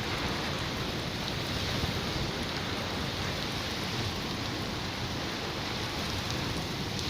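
Steady rain falling, with a few faint drop ticks, the first rain after a seven-day sandstorm.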